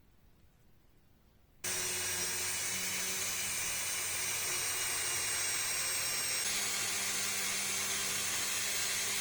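Dremel rotary tool switching on abruptly a little under two seconds in and running at a steady high-pitched whine while polishing pistol parts with metal polish; its pitch shifts slightly about two-thirds of the way through.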